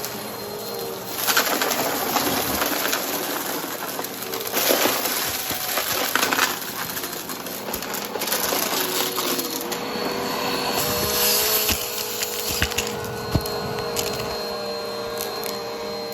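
Upright vacuum cleaner running with its brushroll on, a steady motor whine under crackling and crunching as it picks up debris, louder in spells around a second in, four to seven seconds in and eleven seconds in.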